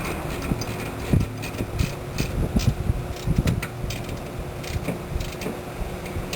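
Irregular clicks, clinks and knocks of tools and hardware being handled while the landing gear is put back together, over a steady low hum.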